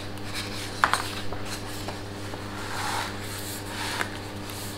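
Pages of a hardback picture book being turned and smoothed flat by hand on a wooden table: paper rustling and rubbing, with a light tap about a second in.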